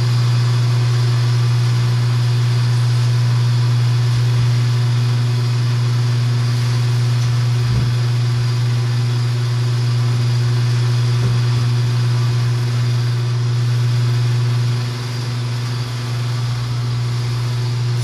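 Electric table saw running steadily with no cut under way: a strong, even hum that drops slightly in level about fifteen seconds in.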